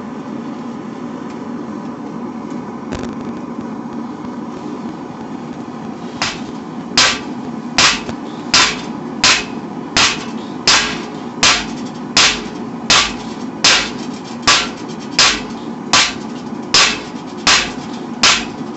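A forge running steadily. About six seconds in, a hammer starts striking hot 5160 spring steel on an anvil in an even rhythm, roughly one blow every three-quarters of a second.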